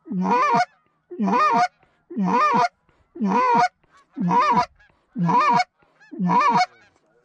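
Canada goose call blown in a steady rhythm: seven loud honks, about one a second, each breaking from a low note up to a higher one.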